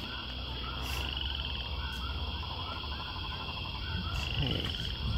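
A chorus of animal calls: many short repeated croaks and quick chirping trills, over a low steady rumble.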